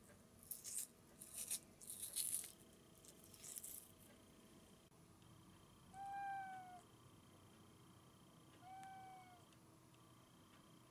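A few short bursts of rubbing and rustling from hands working over a sink, then a tabby cat meowing twice: short, soft calls that fall slightly in pitch, a few seconds apart.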